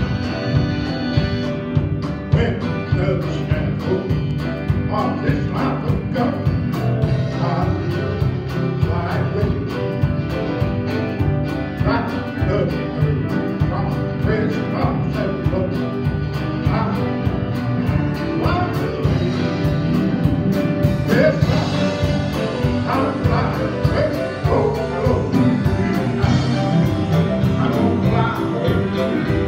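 Live gospel band playing: electric guitar, bass guitar, drums and keyboard, with a man singing the melody.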